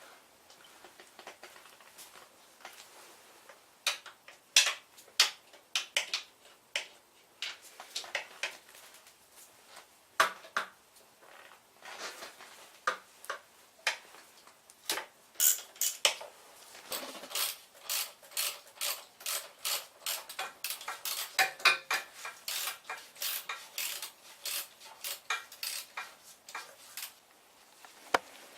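Metal hand tools and small metal parts clinking and tapping: scattered sharp clinks at first, then a steady run of about two clinks a second for most of the second half.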